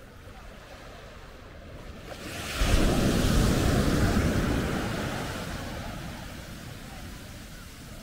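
A wave breaking on the shore and washing up the sand: a rush of surf that surges suddenly about two and a half seconds in, then slowly fades.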